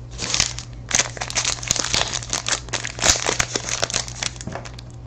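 Trading card pack wrapper being handled and torn open, with a run of irregular crinkling.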